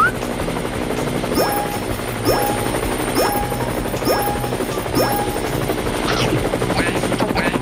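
Steady buzzing hum of a cartoon toy propeller plane. Over it come five short sound effects about a second apart, each a quick upward swoop into a held tone with a bright sparkle on top, then a few short chirps near the end.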